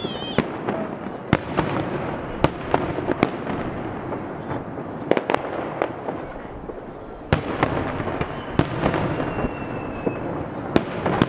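Aerial firework shells bursting in a rapid barrage: about a dozen sharp bangs, unevenly spaced, over a continuous rumble and crackle of further reports.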